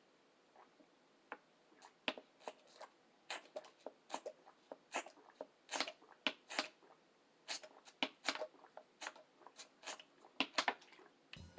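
Close-miked chewing with wet mouth clicks and lip smacks, irregular, a few per second, starting about two seconds in.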